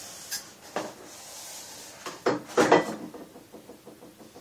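Handling noise from a foamboard RC plane being picked up and turned on a desk: a few light knocks and a rubbing hiss, then two louder thumps about half a second apart just past the middle.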